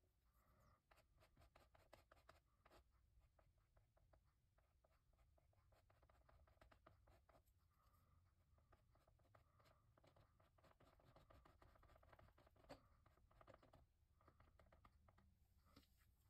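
Very faint scratchy rubbing and small irregular ticks of a sponge being dabbed and wiped over a textured acrylic painting surface.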